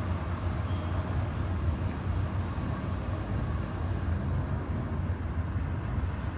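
Car driving at steady speed: a continuous low rumble of engine and tyre-on-road noise.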